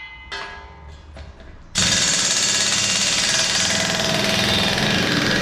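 Impact wrench hammering steadily on a truck's wheel nuts for about four seconds, starting a little under two seconds in: the wheel nuts being undone to take the front wheel off.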